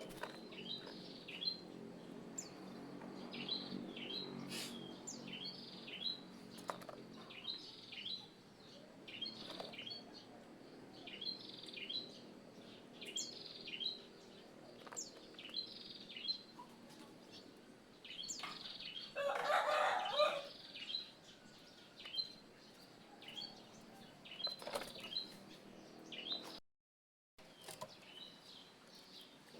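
Oriental magpie-robin (kacer) singing, a string of short high whistled notes about once a second, with one louder, rougher phrase about two-thirds of the way through. The sound cuts out briefly near the end.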